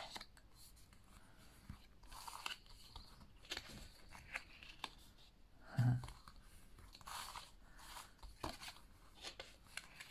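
Printed card stock being handled, folded and pressed into place: faint crinkles and crackles with scattered light ticks. A brief low vocal hum about six seconds in.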